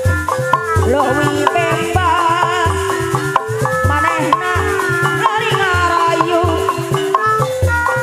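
Sundanese topeng ensemble playing an instrumental passage: kendang drums keep a steady low beat about twice a second while a melody instrument plays sliding, wavering lines over held tones, with no singing.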